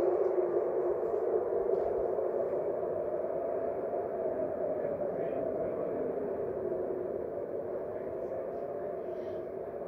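Air raid siren sounding a missile alert for a ballistic missile launched from Yemen. Its tone is held fairly steady while it fades steadily away, as the siren winds down.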